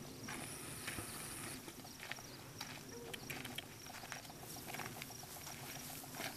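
Footsteps and a puppy's paws crunching irregularly on a gravel road as they walk.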